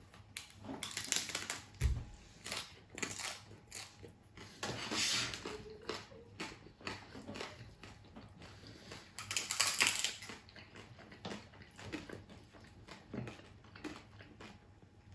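Hard-shell corn taco shells crunching and cracking as they are bitten into and chewed, in an irregular run of crunches. The loudest come about a second in, around five seconds and near ten seconds.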